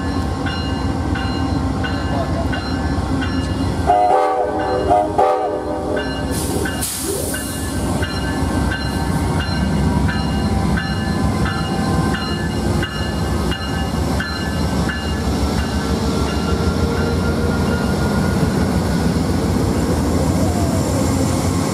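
Amtrak GE Genesis diesel locomotives rumbling past close by, with a bell dinging at an even pace. About four seconds in the horn sounds two short blasts.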